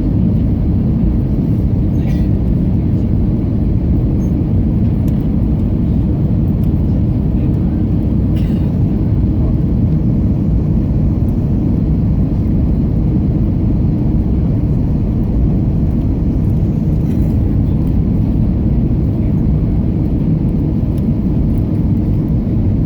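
Steady low rumble of engine and airflow noise heard inside the cabin of an Airbus A321neo airliner, with a few faint clicks.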